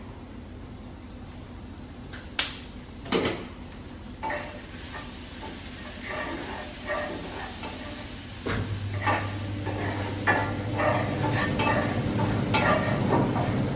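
Onion and garlic sautéing in olive oil in a hot iron skillet: sizzling while a wooden spatula stirs and scrapes the pan, growing busier and louder, with two sharp knocks about two and three seconds in. A low steady hum comes in about eight and a half seconds in.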